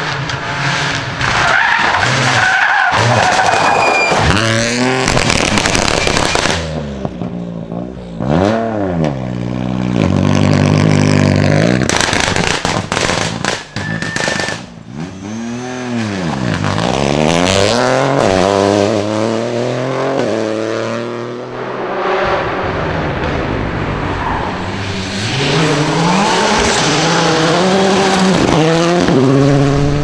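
Rally car engines driven hard: the revs climb through each gear, fall away under braking with downshifts and pick up again. There are several sharp cracks about halfway through.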